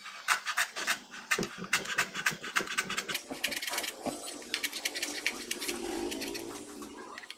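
Kitchen knife rapidly chopping fresh coriander on a plastic cutting board, the blade tapping down several times a second.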